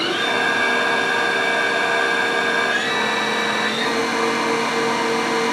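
Haas VF-3 vertical machining center's CAT 40 spindle running at speed with a steady whine of several tones, after spinning up; the pitch steps slightly about three seconds in as the speed changes.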